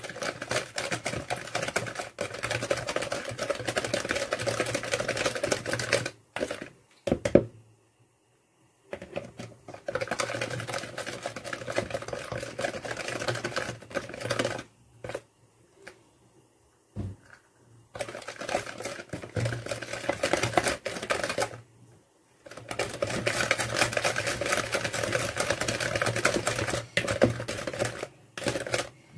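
Hand whisk beating eggs, sugar and oil in a plastic mixing bowl: a fast, steady clicking rattle of the wires against the bowl, stopping briefly three times as more oil goes in.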